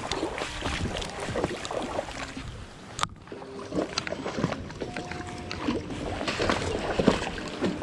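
Water splashing and sloshing in a shallow creek, with irregular knocks, as someone wades through it chasing a hooked fish.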